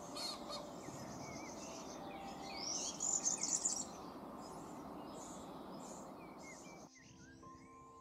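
Outdoor birdsong with many small birds chirping and a steady high insect-like trill, a louder burst of bird calling about three seconds in. About seven seconds in the field sound cuts off and soft background music begins.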